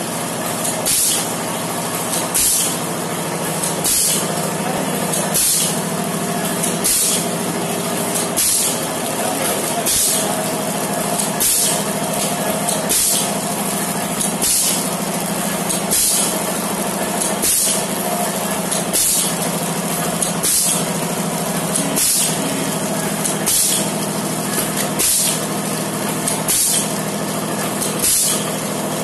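Automatic masala-powder pouch packing machine running: a steady motor hum with a click and a sharp hiss of compressed air about every one and a half seconds as the pneumatic sealing jaws cycle, one sachet per cycle.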